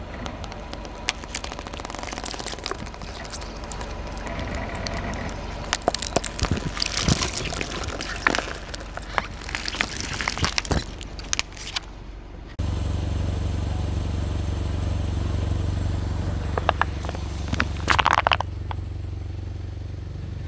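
Car tyre slowly rolling over and crushing plastic soda bottles filled with water beads: crackling with many sharp cracks and snaps as the plastic gives way and the beads burst. About twelve seconds in it cuts to a steady low rumble of the car's engine, with a short crackle near the end.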